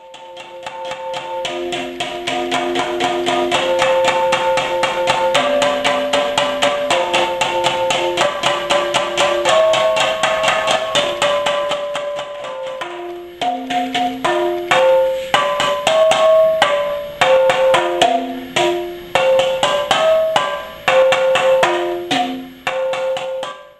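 Homemade marimba with wooden bars over PET plastic bottle resonators, played with mallets. It plays a melody in fast repeated strokes, like rolls, for about the first half, then in single struck notes with short gaps between them.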